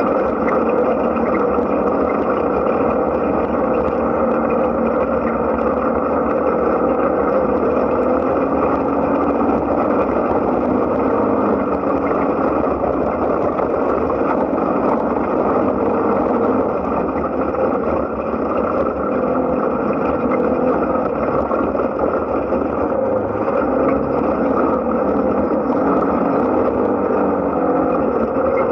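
Side-by-side UTV's engine and drivetrain running steadily as it drives along a dirt trail, a continuous drone that dips slightly about seventeen seconds in.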